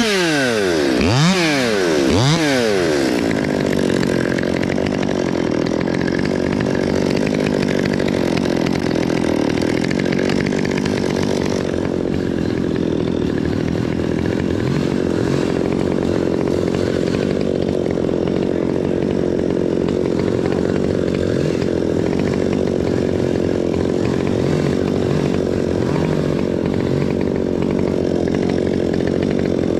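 Stihl MS 200T top-handle two-stroke chainsaw revved in three quick blips at the start, then running steadily at idle, with a few faint blips later on.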